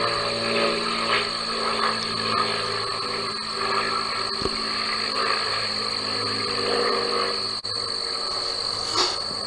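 Frogs croaking in short calls about once a second, over a steady high-pitched whine and a low steady hum.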